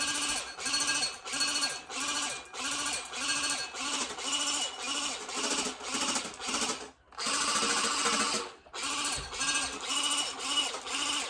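Battery-powered electric toy water gun (a Glock-style blaster with a drum magazine) firing on full auto: its small motor and pump whirring in repeated pulses, about two a second, with a short break about seven seconds in.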